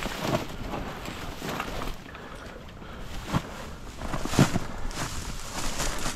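Dry marsh reeds rustling and crackling as they brush against the kayak blind and the camera, in irregular crackles with a sharper knock about four seconds in.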